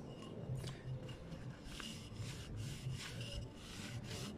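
Cloth rubbing teak oil into a charred pine board, wiped back and forth in a series of soft strokes.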